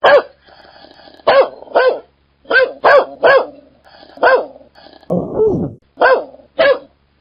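An angry dog barking in sharp single barks, about ten in all, with low growling between them and one longer, falling growl about five seconds in.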